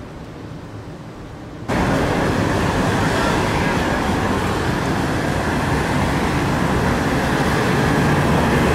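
Road traffic at a town intersection: a quiet street at first, then about two seconds in a sudden jump to louder, steady noise of passing cars. Near the end a minibus's engine hum comes in as it approaches.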